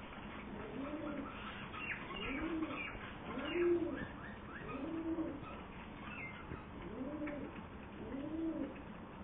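Birds cooing: a run of low coos, each a short note that rises and falls, repeating every second or so, with faint quick chirps higher up.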